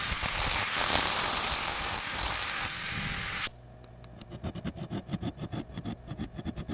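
Dental work sounds: a loud steady hiss like an air-water spray for about three and a half seconds. Then it cuts off into a quick run of scratching, clicking instrument strokes on the tooth.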